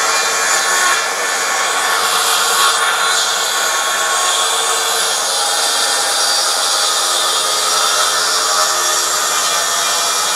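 Makita plunge saw running steadily and cutting a long strip off a board as it is pushed along a guide rail.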